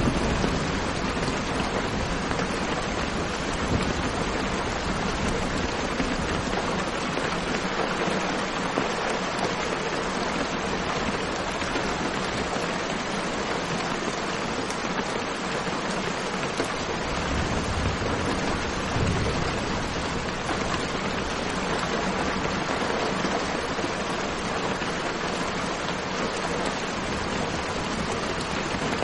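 Steady rain falling, an even hiss with no breaks. A low thunder rumble fades out just at the start, and a faint low rumble swells briefly a little past halfway.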